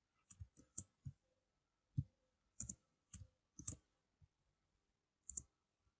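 Faint computer keyboard keystrokes, about fourteen sharp clicks scattered at uneven intervals, many in quick pairs, as code lines are copied and pasted.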